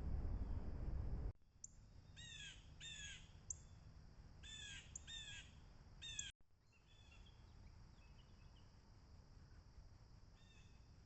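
Crows cawing: four loud caws in two pairs, then fainter caws further off. A low rumbling noise before them cuts off abruptly about a second in.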